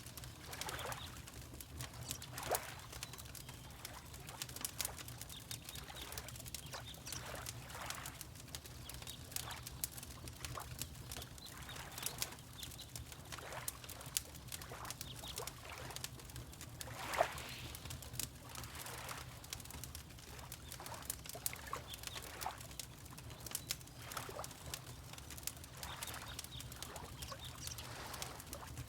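Fireplace crackling and popping in irregular sharp snaps over a low steady rumble, mixed with gentle water lapping. One snap or lap about two-thirds of the way through stands out louder than the rest.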